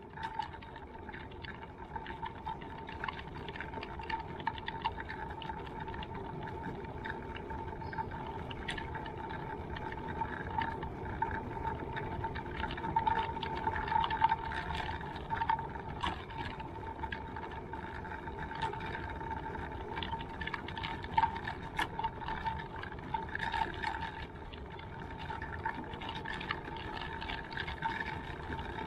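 Steady high-pitched whine over a low rolling rumble, with scattered clicks and knocks: a small motor and wheels moving along a paved path.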